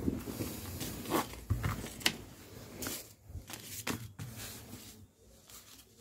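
Rustling and irregular taps and clicks as hands handle folded wool suiting cloth and its card hang tag, with one sharp click about two seconds in.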